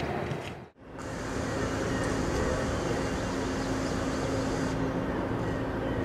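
Steady diesel engine noise from idling backhoe loaders, with a steady hum, broken by a brief drop-out about three-quarters of a second in where the audio is cut.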